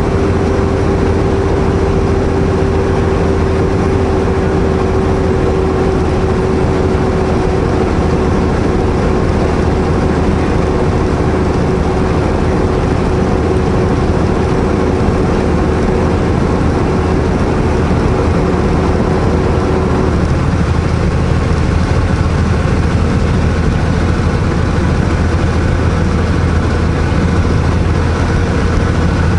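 Semi truck's diesel engine running steadily, heard from inside the cab, with a low drone and a whine over it that sinks slightly and stops about two-thirds of the way through.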